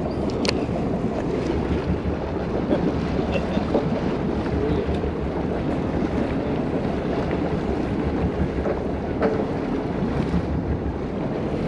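Steady wind buffeting the microphone over open sea, with a few faint clicks.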